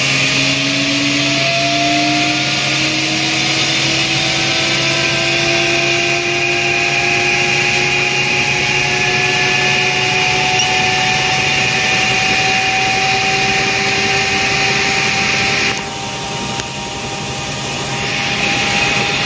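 Eurocopter EC120 Colibri's turboshaft engine and rotor running up on the ground, heard from inside the cockpit: a steady high turbine whine with lower tones rising slowly in pitch as it spools up. Near the end the sound turns briefly duller and quieter, then comes back.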